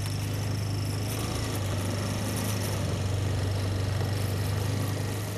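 Quad bike (ATV) engine running steadily as it is ridden along, a constant low hum.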